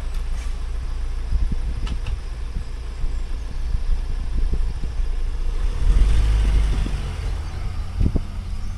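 Road vehicle engines idling in a queue, then pulling away over a level crossing once the barriers are up; the low engine rumble swells about six seconds in as traffic moves off.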